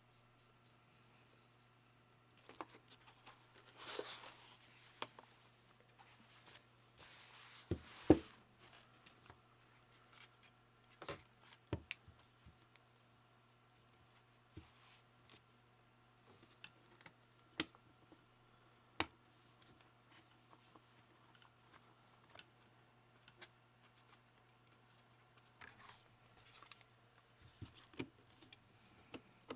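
Custom keyboard parts being handled during assembly: scattered sharp plastic clicks and a few brief scraping rustles, the loudest a sharp click about eight seconds in.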